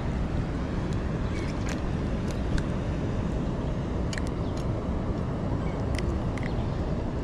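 Steady low rush of fast-moving water below a spillway, with a few light clicks scattered through.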